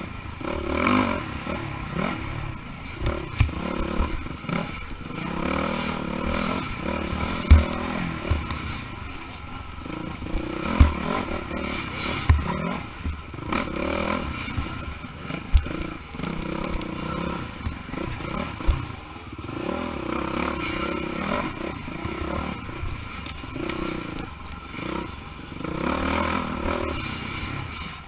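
Off-road dirt bike engine revving up and down as it is ridden along a rough trail, with several sharp low knocks over the engine, the loudest about a quarter of the way in.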